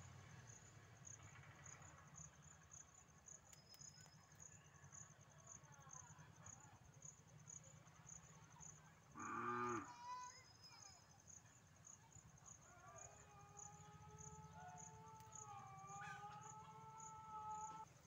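Faint outdoor ambience with a steady, high, pulsing insect chirp over a low hum. A short, louder animal-like call comes about nine seconds in. Long, drawn-out, slightly wavering calls fill the last five seconds.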